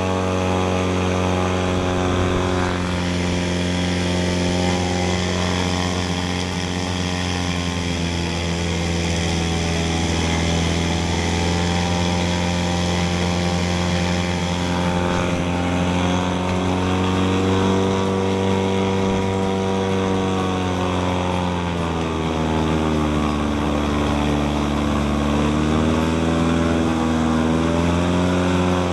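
Airboat engine and caged propeller running hard, loud and steady. Its pitch holds for the first half, then dips and rises several times as the throttle is eased and opened.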